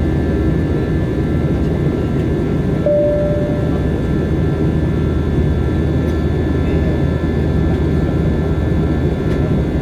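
Airliner in flight after take-off: a steady, loud drone of jet engines and rushing air, with faint steady whines higher up. A short single beep sounds about three seconds in.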